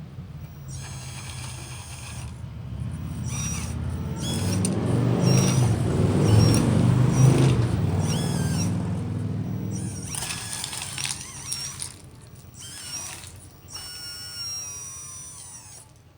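Radio-controlled model construction machine running: a low motor hum swells to its loudest about halfway through and then fades, with repeated short high-pitched whines and squeaks over it.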